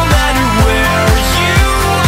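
Electronic synth-pop music: layered synth chords over a steady kick drum beating about twice a second.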